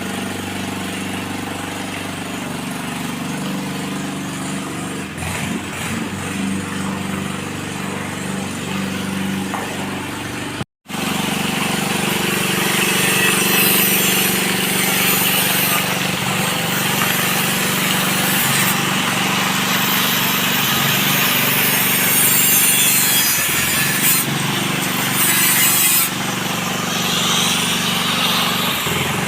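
Motor-driven water pump running with a steady hum as it pumps tanker water into the pool. About eleven seconds in the sound drops out for a moment and comes back louder, with a rasping hiss over the same hum.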